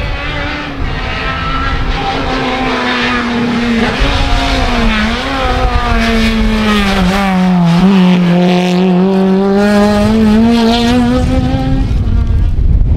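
Honda Civic rally car's four-cylinder engine running hard at high revs. Its note dips about two-thirds of the way through, then climbs again before stopping near the end.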